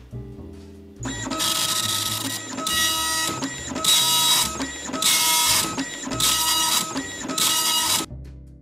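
Panasonic KX-P2123 24-pin dot matrix printer printing a page of text. The print head rasps across the paper in about six passes, each just under a second long with short pauses between. It starts about a second in and stops shortly before the end.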